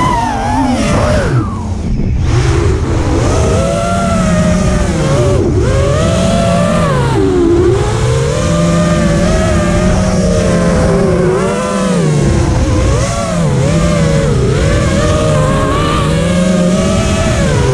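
5-inch FPV racing quadcopter's 2306 2400kv brushless motors and tri-blade props whining, the pitch rising and falling again and again as the throttle is worked, with wind rushing past the onboard camera.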